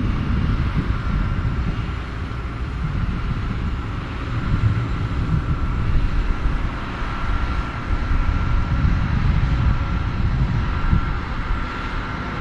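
Heavy farm machinery running steadily in a field: a low engine rumble with a faint high whine held throughout, and wind buffeting the microphone.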